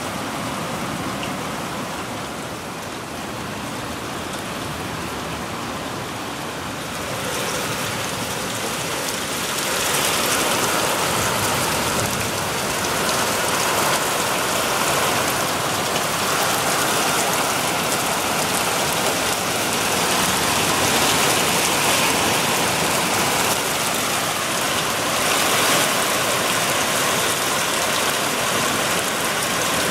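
Heavy rain pouring down in a steady hiss, growing louder twice in the first third and then holding steady.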